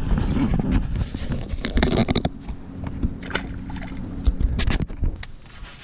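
A small bass tossed back into the lake, splashing into the water beside the boat. Handling clicks and rustles come over a steady low hum and a rumble of wind on the microphone.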